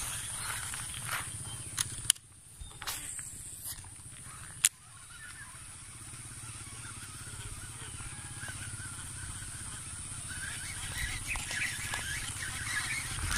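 Outdoor ambience: a steady high insect drone over a low rumble, with a few sharp clicks in the first five seconds.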